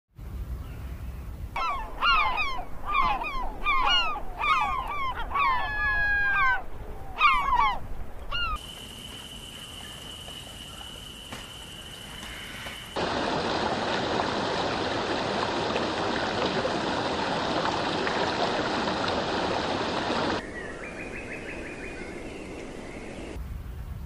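A run of loud, repeated bird calls, harsh notes that rise and fall, which cut off abruptly. After that, a steady thin high tone for a few seconds, then a steady rushing noise, then a quieter bed with a faint high trill near the end.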